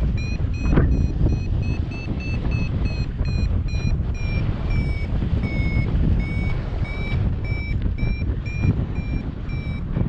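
Paragliding variometer beeping in its climb tone, about two to three short beeps a second, the pitch drifting up and down with the climb rate: the glider is in rising air. Wind rushes loudly across the microphone underneath.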